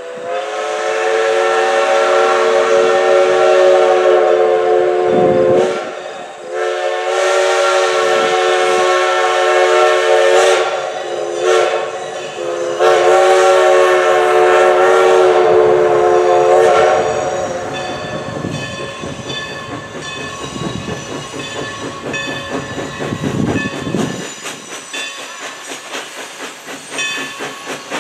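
Everett Railroad No. 11 steam locomotive's chime whistle blowing the grade-crossing signal: two long blasts, one short and one long. After that the locomotive's exhaust beats and hiss grow more distinct as it works its train closer near the end.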